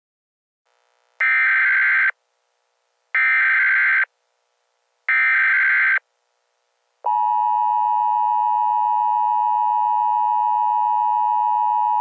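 Emergency Alert System SAME header: three bursts of rapid digital data tones, each about a second long and a second apart. About seven seconds in, the steady two-tone EAS attention signal starts and holds.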